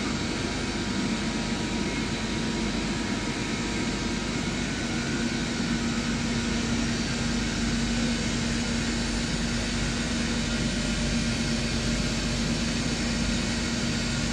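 CNC lathe running a dry turning cycle, without coolant: a steady machine hum and whir with a low steady tone that grows a little stronger about five seconds in.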